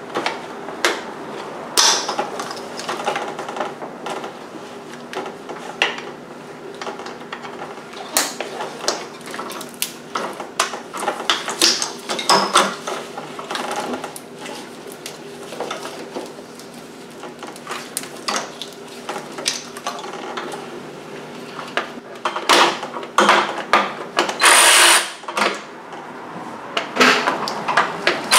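Irregular clicks, taps and clatter of hand tools and plastic wiring connectors being worked loose on an engine's top end while a valve cover is being removed, with a couple of short, louder bursts near the end.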